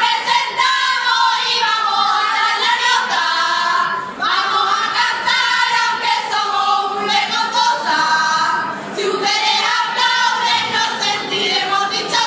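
A group of women singing a carnival song together, in phrases with a brief break about four seconds in.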